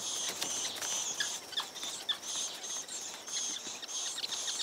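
Sociable weavers chattering: a steady stream of many short, high chirps.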